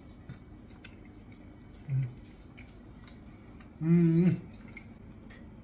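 A man chewing a mouthful of pita sandwich, with small wet mouth clicks, and humming a closed-mouth "mmm" of approval: a short one about two seconds in and a longer, louder, steady one near four seconds.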